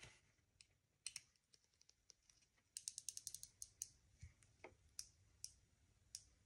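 Faint small clicks and taps from a plastic red dot sight being handled and fiddled with. A quick run of about eight clicks comes about three seconds in, with single clicks scattered before and after.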